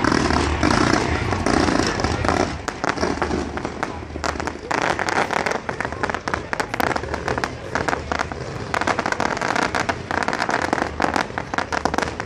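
Aerial fireworks crackling: a dense run of many rapid small pops from crackling stars, loudest and thickest in the first couple of seconds.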